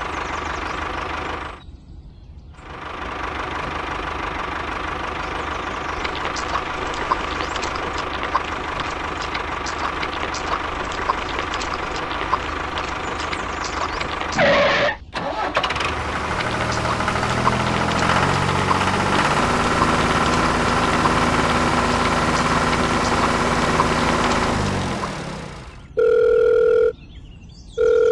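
Tractor engine running with a fast knocking beat. It cuts out briefly about two seconds in and again around the middle, shifts pitch in steps later on, then stops. Near the end a telephone ringtone sounds in two short bursts.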